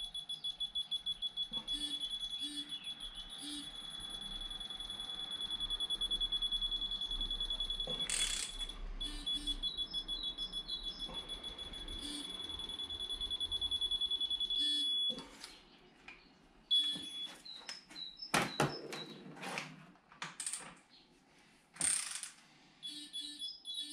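High-pitched electronic beeping, rapid and continuous, that stops about fifteen seconds in and comes back briefly twice. In the second half there are a few loud, sharp knocks and clatter of metal parts or tools.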